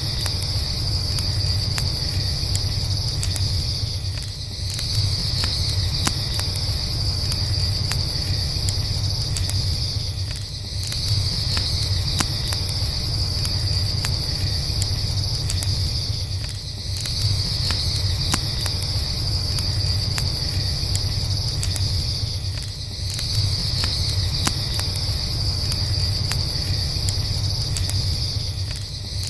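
Campfire crackling with a steady low rumble under a continuous high chorus of night insects such as crickets; the insect chorus dips briefly about every six seconds.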